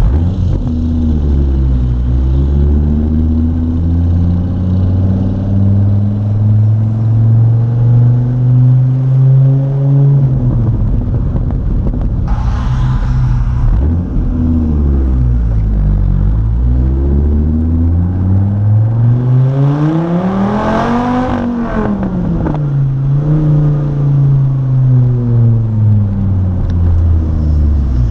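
2006 Dodge Viper SRT-10's 8.3-litre V10 under acceleration: the engine note climbs steadily for several seconds, drops sharply around ten seconds in, then rises again to a hard, high rev about twenty seconds in before falling away as the revs come down.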